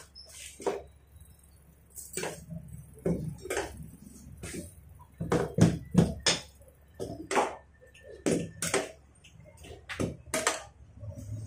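Irregular metallic clinks and knocks of hand tools and metal parts being handled and tapped during a wheel hub repair, a dozen or more sharp strikes with the loudest cluster about halfway through.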